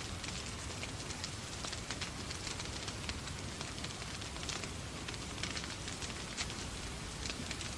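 Log fire in a fireplace crackling, with frequent small sharp pops, over the steady hiss of falling rain and a low rumble.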